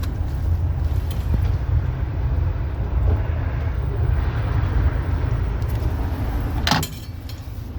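Steady rumble of city street traffic, with a short sharp clack near the end.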